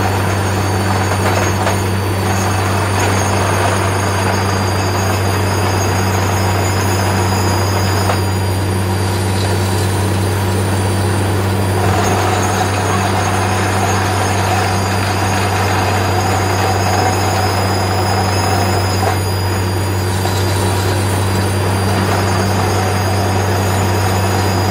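Truck-mounted borewell drilling rig running steadily while drilling, a constant low machine hum with no let-up. A higher whine joins about halfway through.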